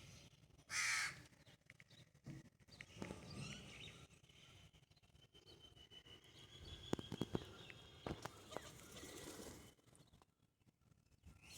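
A crow caws once, briefly, about a second in, over a faint outdoor background with a thin high tone and a few scattered light clicks.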